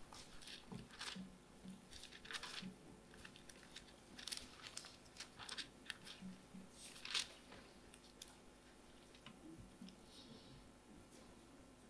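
Faint rustling of thin Bible pages being turned at a lectern, a series of short page flips and crinkles, the loudest about seven seconds in.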